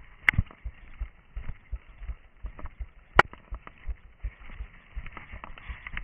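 Footsteps of a runner going through forest undergrowth at night, thudding at about three steps a second, with two sharp cracks: one near the start and one about three seconds in.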